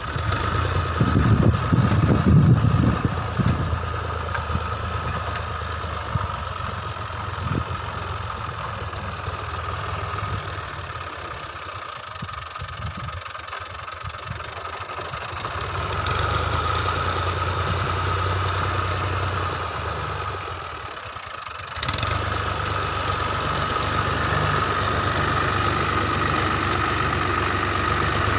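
Tractor diesel engine running steadily with a constant whine over a low drone, and a louder low rumble for a couple of seconds about a second in.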